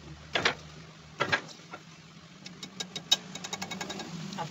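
Metal knocking and clinking as a part is handled against a rotavator gearbox housing clamped in a lathe chuck: two heavier knocks in the first second and a half, then a quick run of small sharp clicks. A steady electric hum runs underneath.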